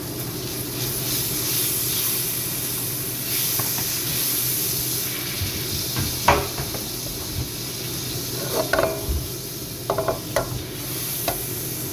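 Scotch fillet steak frying in butter in a hot pan, a steady sizzle. A few short clinks or knocks come through about six, nine and ten seconds in.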